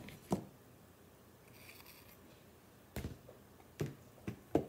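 Metal clicks and light knocks of an aluminium pistol mock-up built on Gevarm .22 parts being field-stripped by hand: two sharp clicks near the start, a brief faint scrape about halfway through, then a quick run of four clicks near the end.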